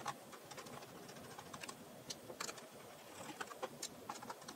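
Faint, irregular small clicks and ticks of a small screwdriver turning out the screws of a laptop's bottom cover, a few taps a second, coming in little clusters.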